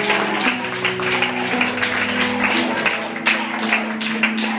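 Background church music: held chords that change about once a second, over a quick light beat.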